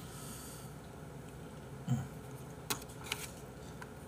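Quiet eating sounds: a short low hum from the eater about two seconds in, then a couple of sharp clicks from chopsticks and mouth near the three-second mark.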